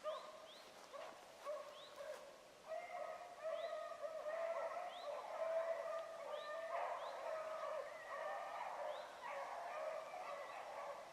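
A pack of rabbit hounds baying on the track of a running rabbit: several dogs giving long, overlapping howling cries that swell and break and keep going.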